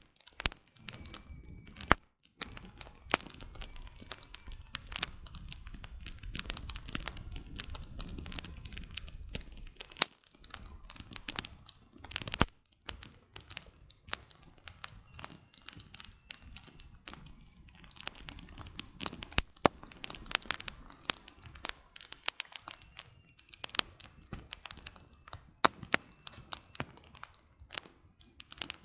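Campfire crackling: burning firewood giving off many sharp snaps and pops in irregular clusters, with a low rumble underneath for a few seconds in the first third.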